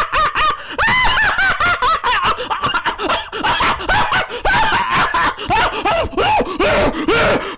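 A man laughing hard and without a break, many short rapid 'ha' syllables rising and falling in pitch: a voiced, uncontrollable laughing fit.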